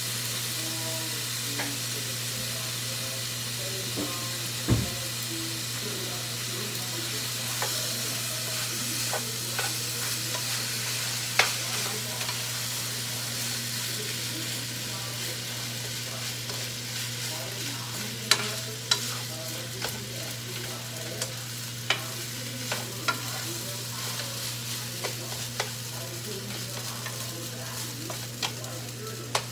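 Garlic rice frying in a nonstick skillet, sizzling steadily while a spatula stirs it, with sharp taps of the spatula against the pan. The loudest is a knock about five seconds in. A steady low hum runs underneath.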